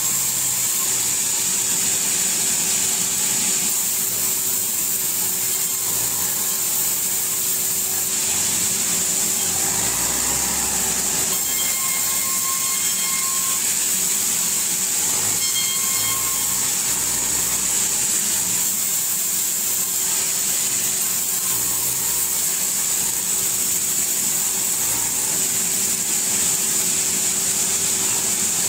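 Powered sawmill saw running continuously as timber is fed through it, giving a steady high-pitched whine over a low hum.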